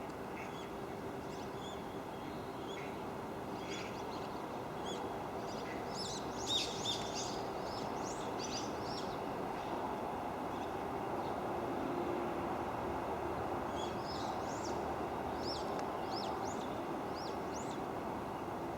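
Barn swallows twittering: quick, high chirps that come in two flurries, one about six seconds in and another near the end, over a steady background hum.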